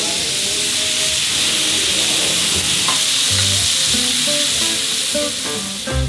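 Food frying in a hot pan, a steady sizzle that fades out near the end.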